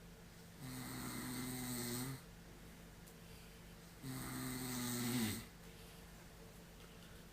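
A person snoring in their sleep: two long, pitched snores about three and a half seconds apart, each lasting about a second and a half, the second dropping in pitch as it ends.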